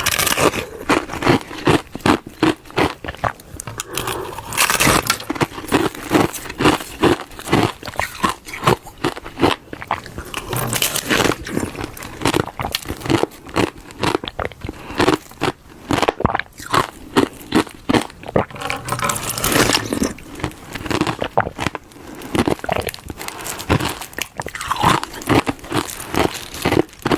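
Glove-shaped block of frozen ice being bitten and chewed close to the microphone: a steady run of sharp, crisp crunches and cracks, several a second.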